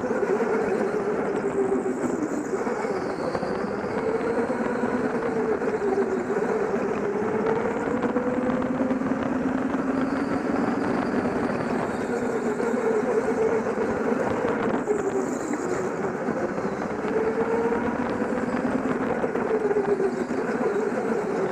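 Go-kart motors running on an indoor track, heard from aboard one kart. A steady drone whose pitch rises and falls with throttle through the corners, with other karts' motors weaving in and out.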